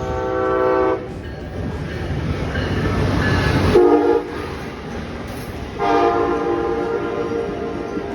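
Passing train sounding its horn in three blasts over the rumble of the train: one about a second long, a short one near the middle, and a long one held through the end.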